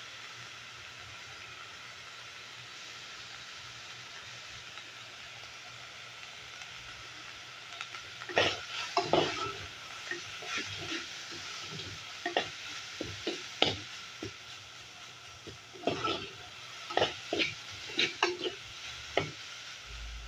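Ground beef sizzling as it browns in an aluminium pot, with a steady hiss. From about eight seconds in, a perforated skimmer spoon scrapes and knocks irregularly against the pot as the meat is stirred.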